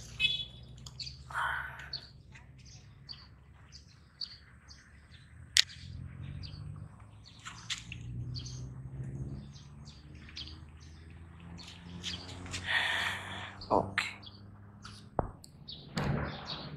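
Small birds chirping again and again in short, scattered calls over a low steady hum. One sharp click about five and a half seconds in is the loudest sound.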